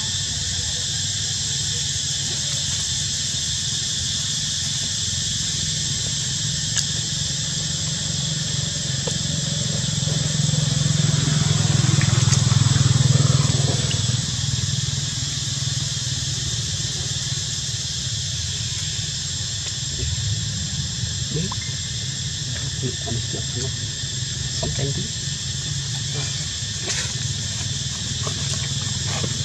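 Outdoor ambience: a steady high-pitched insect drone over a low rumble that swells for a few seconds about ten seconds in, with a scatter of faint clicks later on.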